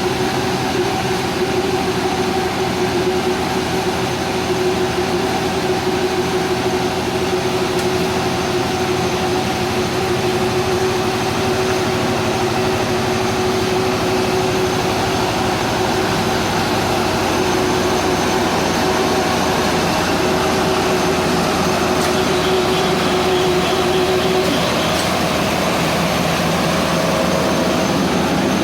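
Electric-powered silage baler and wrapper, with a 5.5 kW main motor, running steadily: a continuous mechanical din with a few held humming tones through it.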